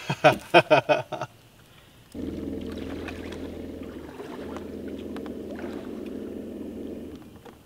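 A bass boat's electric trolling motor running with a steady, even hum that starts abruptly about two seconds in and cuts off just before the end. A short burst of a man's voice comes at the very start.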